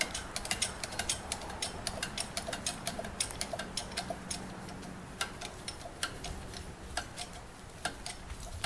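Rapid, irregular metallic clicking from the hand-pumped 8-ton hydraulic bottle jack of a tractor-mounted engine hoist and its lifting chain as the boom is jacked up, several clicks a second, growing sparser in the second half.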